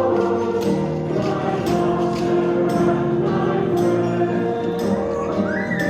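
A group singing a worship song over instrumental accompaniment with a steady beat.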